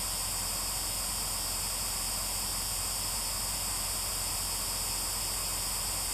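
Steady static hiss with a faint low hum underneath, unchanging throughout.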